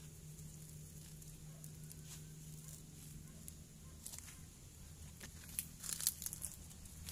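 Rustling and crackling of leaves being brushed and handled, with a cluster of louder crackles about six seconds in.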